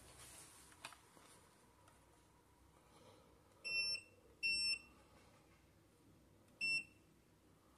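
Electronic touch-control panel of a LUXORISE iTouch WAX PRO wax heater beeping three times, with short high beeps about 4, 4.5 and 7 seconds in.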